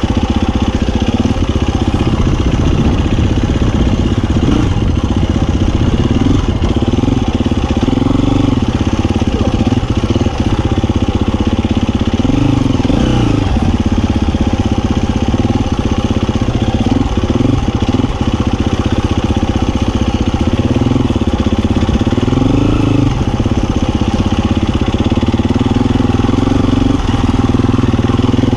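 Husqvarna FE350 single-cylinder four-stroke dirt bike engine running as it is ridden off-road, its revs rising and falling over and over with the throttle.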